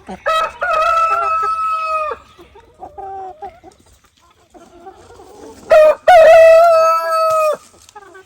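Rooster crowing twice, each crow a long held call about two seconds long, the second louder, with softer short chicken calls between.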